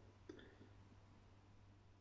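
Near silence: room tone, with one faint click about a third of a second in.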